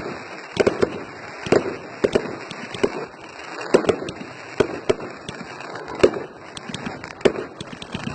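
Firework display: a rapid, irregular run of sharp bangs from exploding aerial shells, over a steady crackle.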